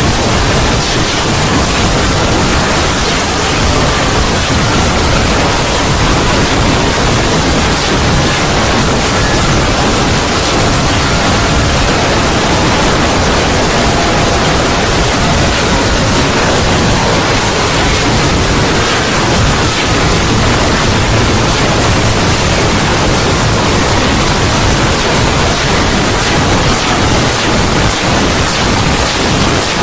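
Steady, loud rushing noise like pink noise: a 'void' sound effect, with faint wavering whistle-like tones drifting within it.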